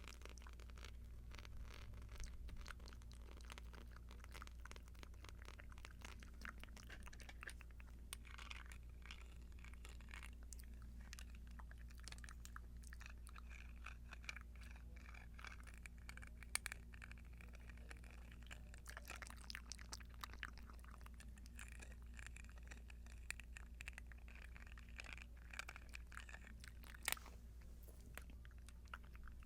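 Earrings handled close to the microphone: many small, quick clicks, taps and scratches, faint, over a steady low hum.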